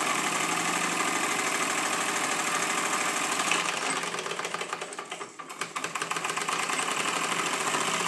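A 1-inch scale Markie live-steam model traction engine running in gear, its cylinder making a fast, even chatter of exhaust beats with steam hiss. The sound drops away briefly about five seconds in, then comes back up to speed.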